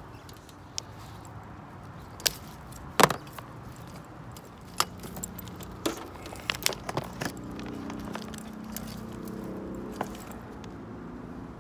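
Scattered metallic clicks, clinks and knocks of hand tools and loosened screws as an RV TV antenna's mounting base is worked free of the roof. The sharpest knock comes about three seconds in, a run of clinks follows a few seconds later, and a low hum sets in about halfway through.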